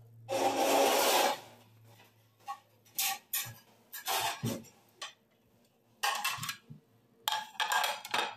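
Rough rubbing and scraping noises in several bursts, the longest and loudest about a second in, from hands and a spoon working over a metal pot of puffed-rice chatpate as lemon is squeezed into it.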